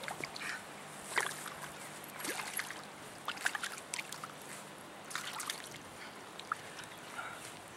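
Hooked trout splashing and thrashing at the surface of a pond as it is brought into a landing net, in short irregular bursts of splashes.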